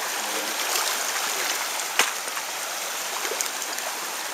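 Shallow stream water rushing steadily, with one sharp click about halfway through.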